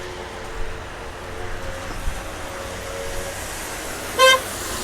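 Steady rush of wind and rain with a low rumble, and faint steady tones through the first three seconds. About four seconds in comes one short high-pitched sound.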